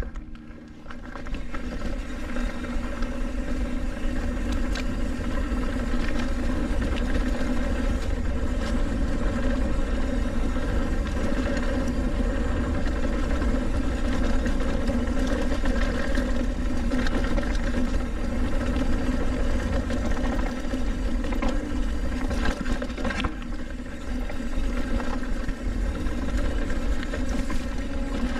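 Wind rushing over the action-camera microphone and tyres rolling over a dirt trail on a Trek Roscoe hardtail mountain bike, with knocks and rattles from the bike over bumps. The noise picks up about a second in.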